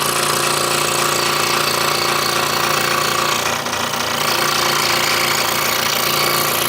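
Scroll saw running and cutting through a wooden jigsaw puzzle, a steady buzzing hum of the reciprocating blade with a brief dip about four seconds in.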